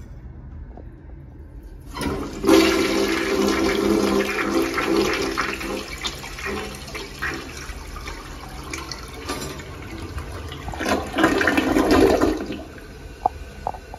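American Standard Cadet tank toilet (1994–1997) flushing: the water rushes in loudly about two seconds in, eases off, then surges loudly again around eleven seconds before dying down.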